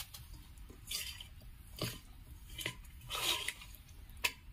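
Wet, salted bitter gourd (karela) slices being handled and pressed by hand on a plate of cornflour and sesame seeds: about five short, soft wet squishes.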